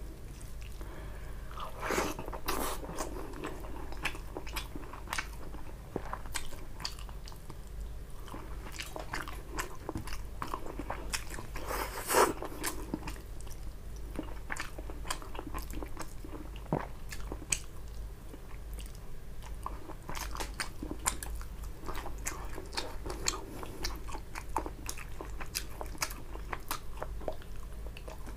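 Close-miked chewing of rice and tilapia fish curry eaten by hand, with many short wet mouth clicks and the odd crunchy bite; the loudest bite comes about twelve seconds in.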